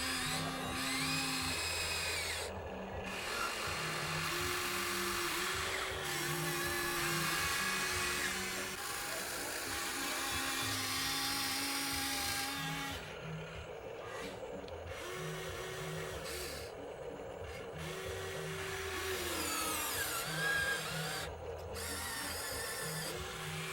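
Small electric motors of Huina radio-controlled construction models whining. The pitch steps up and down every second or two as the motors start, stop and change load.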